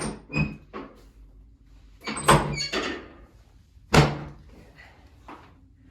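Sharp thuds from a chiropractic adjusting table as the back is adjusted: one about half a second in, a quick run of several around two to three seconds in, and the loudest single thud near four seconds.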